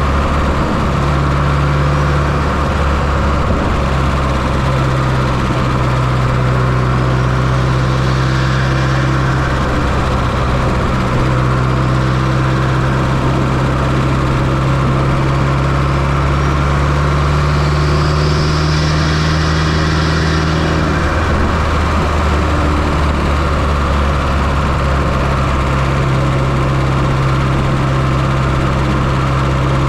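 1995 Fiat Coupe 2.0-litre 16-valve turbocharged four-cylinder engine idling steadily, heard up close from inside the engine bay, with small drifts in engine speed.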